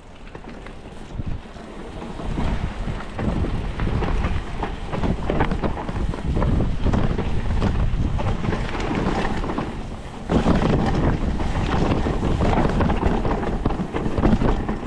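Mountain bike riding downhill on a dirt trail over roots: tyres on dirt and the bike rattling with many small knocks over bumps, with wind on the microphone. Quieter at first, it gets louder about two seconds in and again about ten seconds in.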